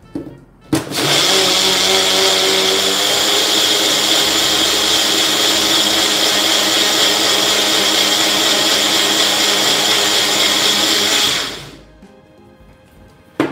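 Bullet blender running, churning curd with water and spices into masala buttermilk: a sharp click as the jar is pressed down about a second in, then a loud steady whine for about ten seconds until the motor cuts out and winds down. Another click near the end as the jar is lifted.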